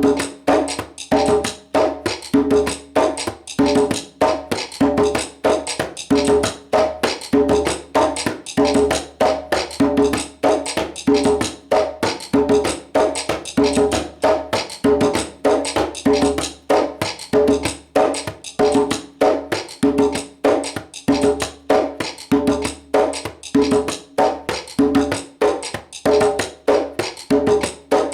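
Djembe playing a basic salsa drum pattern, steady open tones mixed with sharp slaps, over a dry wooden click rhythm of the cascara pattern.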